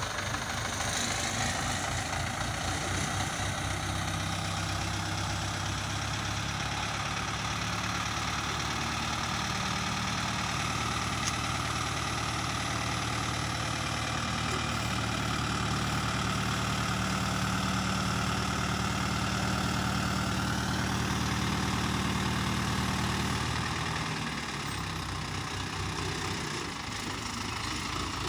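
Diesel engine of a pick-and-carry mobile crane running steadily while it hoists and carries a bundle of iron pipes. The engine note rises about halfway through and drops back a few seconds before the end.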